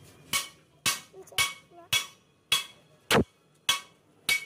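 Hammer blows on the metal spring pulley and shaft of a rolling shutter, about eight strikes at a steady pace of roughly two a second, each with a short metallic ring.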